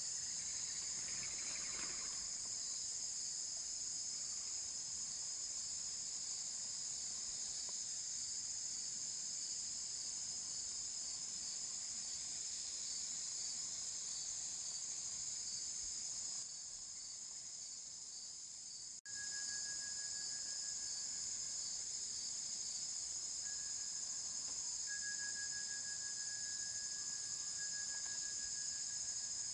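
Continuous high-pitched chorus of insects, steady throughout. It thins out for a few seconds past the middle and cuts off sharply for an instant before returning, after which a thinner, lower single note joins on and off.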